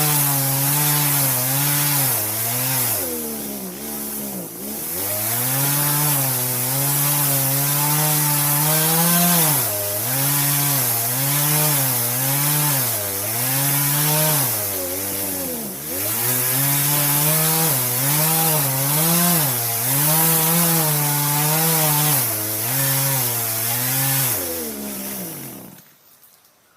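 Chainsaw cutting into a large tree, its engine speed wavering under load and twice sagging almost to idle before picking up again. The engine stops suddenly about a second before the end.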